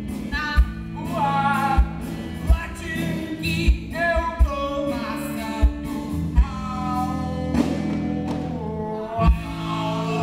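Three performers singing an improvised song together, each adding one word at a time, over instrumental accompaniment with sustained low chords and a low thump about once a second.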